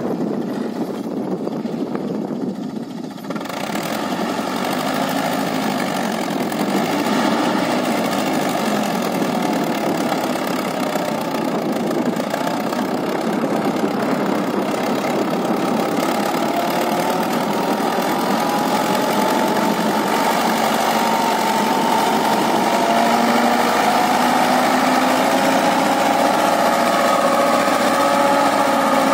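Fordson Major tractor's engine running under load as it pulls a trailer heaped with sand over soft ground. The engine grows louder a few seconds in, then holds steady, its note wavering later on.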